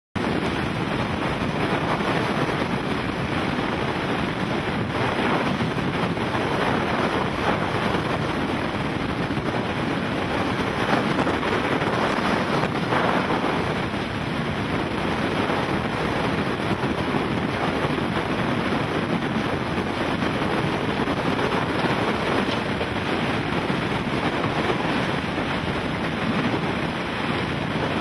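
Hurricane-force wind blowing across the microphone: a loud, steady rush of wind noise, rising in gusts now and then.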